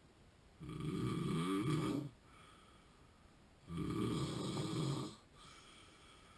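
A sleeping man with sleep apnea snoring: two long, rasping snores about three seconds apart, with quiet breathing between them.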